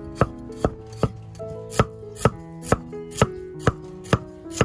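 Knife chopping food on a cutting board in a steady rhythm, about two strokes a second.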